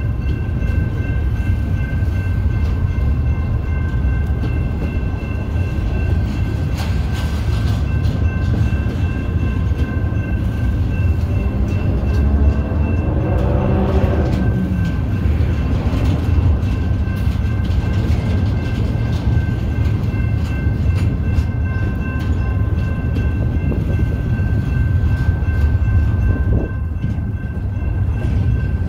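Intermodal freight train's container cars rolling past with a steady low rumble and the clicking of wheels over the rails. Steady high ringing tones run under it, with a short pitched whine about halfway through.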